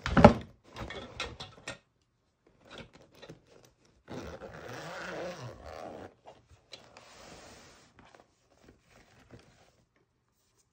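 Handling of a pink plastic toiletry bag: a loud crinkling bump at the start and a few clicks, then two longer rasping runs as its zipper is pulled open, and a few light taps near the end.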